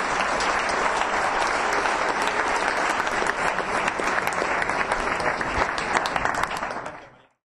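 Audience applauding steadily, many hands clapping at once; the applause fades away about seven seconds in.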